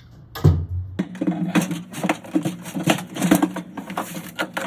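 Washing-machine drive parts being handled and fitted together: a thump about half a second in, then rapid, irregular metallic clicking and clattering.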